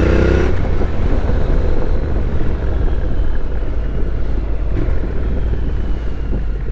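Honda NC750X's parallel-twin engine pulling in first gear, rising in pitch for about half a second, then the ride goes on as a steady rush of wind and road noise over a low engine rumble.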